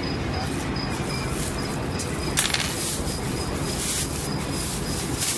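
Light clatter of food containers being handled, with a sharp clink about two and a half seconds in and another near the end, over a steady low machinery hum.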